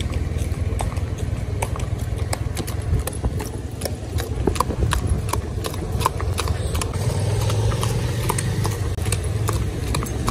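Hooves of several ridden horses clip-clopping at a walk, in an irregular run of overlapping strikes, over a steady low rumble.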